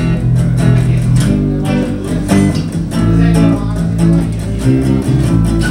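Live acoustic bass guitar and hollow-body electric guitar playing an instrumental passage together: strummed chords over steady bass notes.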